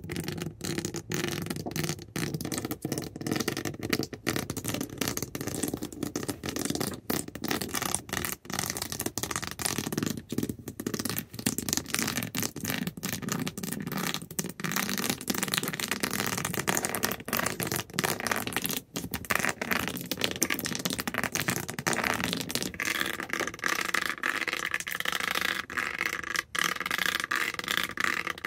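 Rapid scratching and tapping with the backs of fingernails on an object, a dense run of quick scratchy strokes. About twenty-two seconds in the sound turns brighter and higher-pitched, as the nails move onto a different surface.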